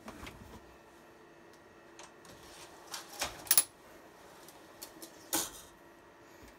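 Metal server chassis of a Dell PowerEdge R620 scraping and clanking against the rack as it is pushed in by hand. A cluster of sharp metallic clinks a little past halfway is the loudest, with another clunk about two seconds later.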